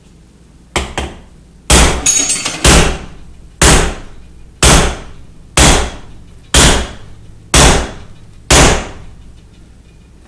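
Hammer blows on a homemade steel pipe driver, driving a vacuum seal down onto a Ford F-250 front axle shaft. A light tap comes first, then about nine hard, ringing metal-on-metal strikes, roughly one a second.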